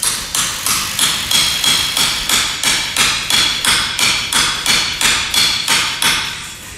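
A rapid, even run of sharp metallic taps with a bright ring, about three to four a second, stopping shortly before the end.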